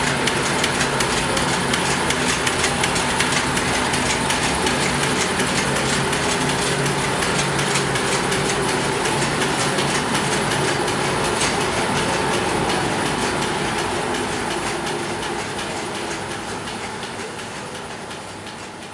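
Nixtamal corn mill running steadily as it grinds cooked corn into masa: a dense mechanical running noise with fine rapid clatter over a low hum. It fades out near the end.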